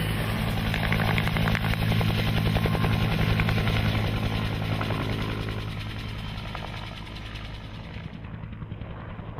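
An engine running steadily with a rapid low pulsing, growing fainter over the last few seconds.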